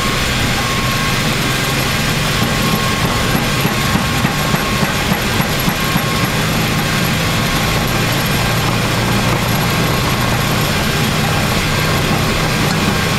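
Flight-deck sound of a Boeing 737 MAX on its takeoff roll at takeoff thrust. Its CFM LEAP-1B engines and the rushing air and runway rumble make one loud, steady noise with a faint steady tone in it, as the jet accelerates from 80 knots toward V1.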